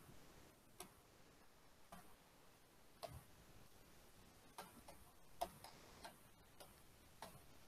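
Near silence broken by faint, irregular light clicks, roughly one a second: a stylus tapping on a pen tablet while handwriting.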